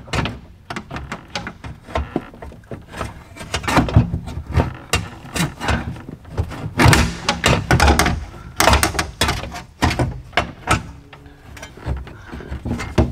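Irregular knocks, clunks and scraping as a replacement power-window regulator is forced into a GMC Envoy XUV's midgate, bumping against the door frame while it is worked into place.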